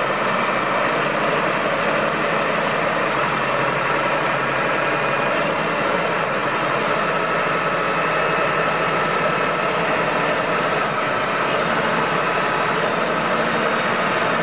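Diesel engine of a motor grader running steadily at low revs.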